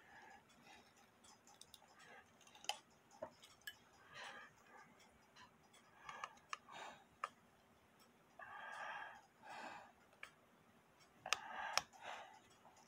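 Faint, irregular clicks and short scrapes of a small screwdriver working a screw on the brass plate of a clock movement, with a sharper cluster of clicks near the end.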